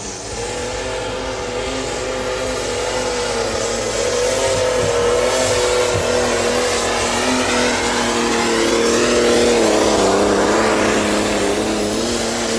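Deutz-Fahr pulling tractor's diesel engine running at full power as it drags the weight sled down the track, growing louder toward a peak about ten seconds in.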